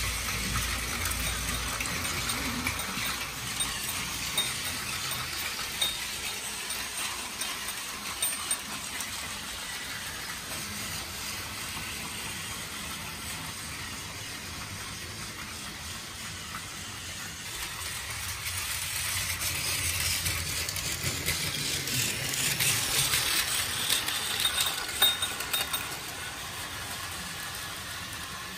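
Battery-powered plastic toy trains running on plastic track: a steady small-motor whir with clicking and rattling of the wheels over the track. It grows louder from about two-thirds of the way in as a train passes close, then drops back near the end.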